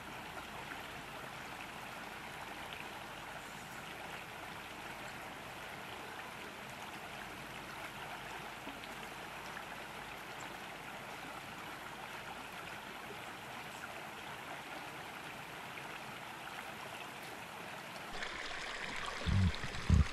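Small woodland trout brook running steadily over a shallow riffle. Near the end the water gets louder and brighter, with a couple of low thumps just before the end.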